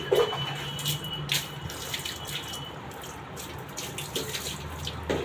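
Water poured by mugful over a wet Labrador puppy, splashing and running onto a concrete floor in a series of short splashes.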